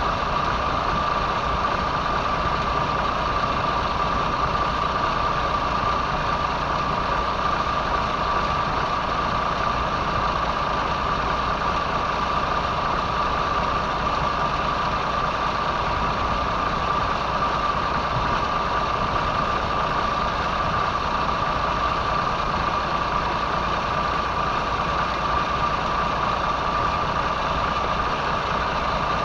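Boat's inboard engine idling steadily, with a constant high whine over the engine note.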